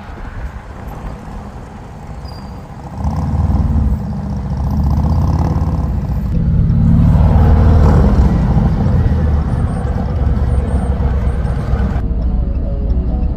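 Harley-Davidson Road Glide ST's Milwaukee-Eight 117 V-twin running loud through an aftermarket exhaust. It gets louder about three seconds in and again around seven seconds in, then holds steady.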